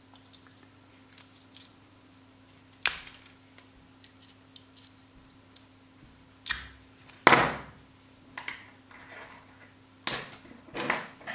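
Small tools prying the plastic cover off a UHF power amplifier module: a few scattered sharp clicks and cracks with faint ticks between them.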